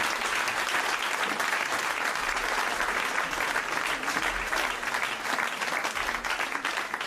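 Studio audience applauding steadily after a comedy monologue ends.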